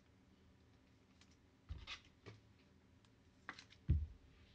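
Four light clicks and knocks of trading cards and plastic card holders being handled on a table, the loudest near the end.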